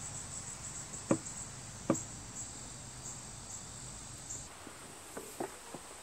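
High, steady insect chirping outdoors, with a low hum under it. Two sharp knocks come about one and two seconds in. The chirping and hum cut off suddenly about four and a half seconds in, leaving a few faint taps.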